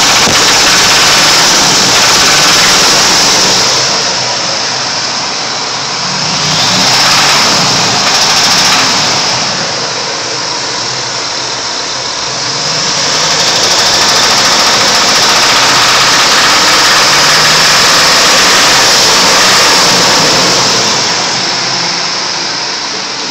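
Supercharged 5.4-litre V8 of a 1999 Ford F-150 Lightning running with an engine knock, swelling briefly twice about a third of the way in.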